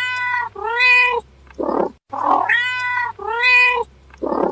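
Domestic cat meowing: two arching meows in quick succession, then a shorter, lower call. The same sequence repeats identically about two and a half seconds later, a looped sound-effect recording.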